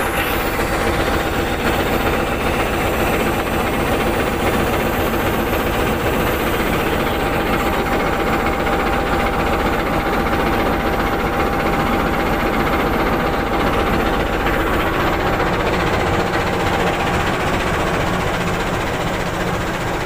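Diesel-electric locomotive idling steadily at close range: a heavy, even engine rumble with a thin steady whine over it.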